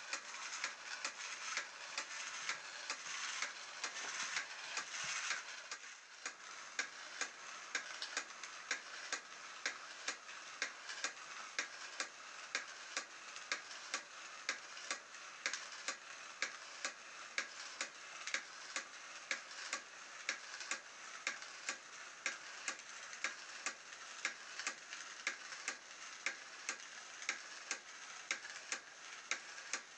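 Homemade DVD-drive crawler robot running: its small motor and plastic gear-and-tray mechanism clicking steadily and regularly, a little over two clicks a second, as it walks. There is a denser scraping rasp through the first five seconds or so, which then falls away, leaving the clicking.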